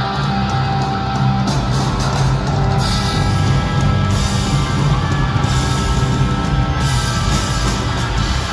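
Live rock band playing loudly on electric guitar and drum kit, with sharp drum hits between about one and a half and three seconds in.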